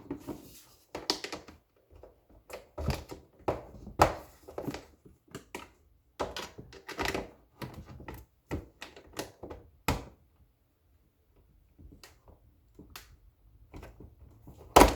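Plastic parts of a coffee maker's lid clicking, tapping and knocking as they are handled and pried into place with a flat-head screwdriver, with one loud sharp snap near the end.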